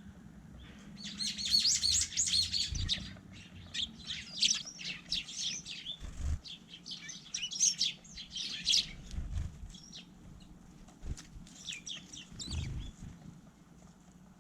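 Small garden birds chirping: rapid bursts of short, high chirps that come and go, busiest in the first few seconds. A few low, dull thumps are heard among them.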